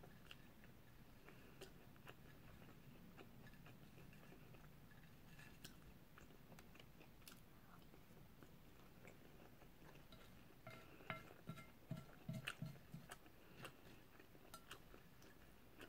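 Faint chewing of food, with small clicks of a plastic fork on a plate. A quick run of louder clicks and taps comes about eleven to thirteen seconds in.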